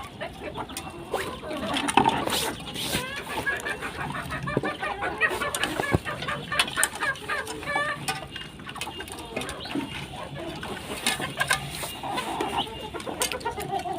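A flock of poultry clucking and chirping over food, with a few sharp knocks scattered through.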